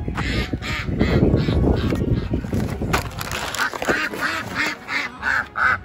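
White domestic ducks quacking repeatedly in a quick series of short calls, about two or three a second. Rustling and handling noise runs under the calls in the first half.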